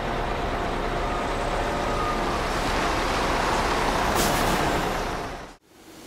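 A steady rushing noise that swells, with a short sharp hiss about four seconds in, then cuts off suddenly near the end.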